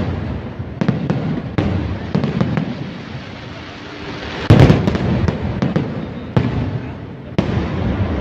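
New Year's Eve aerial fireworks going off: a series of booming bursts with crackling between them, the loudest bang about four and a half seconds in.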